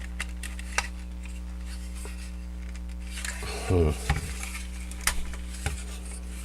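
Hard plastic parts of a transforming robot action figure being twisted and repositioned: scattered sharp clicks and ratcheting joint clicks, with a brief louder pitched sound a little past the middle.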